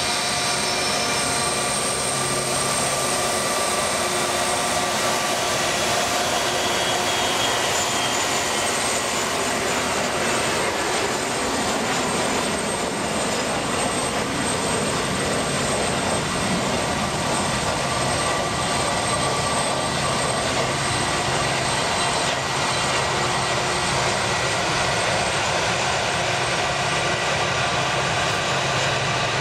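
Tupolev Tu-204-100B's twin PS-90A turbofan engines running at taxi power as the airliner taxis: a steady jet rush with several held whining tones.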